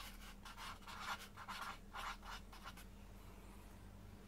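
Marker pen writing letters on cardboard: a quick run of short scratchy strokes that stops about three seconds in.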